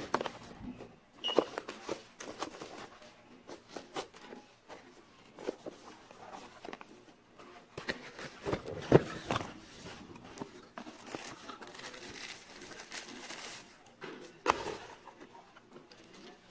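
A cardboard product box being handled and opened by hand: irregular taps, scrapes and clicks of the cardboard, one sharp snap a little past halfway, and crinkling of plastic wrapping in the later part as the parts are taken out.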